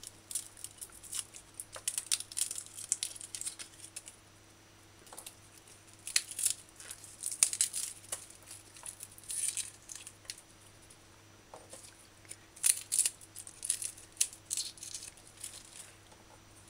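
Garlic cloves being peeled and trimmed with a small knife: the dry papery skins crackle and tear in irregular scratchy bursts, with short light clicks.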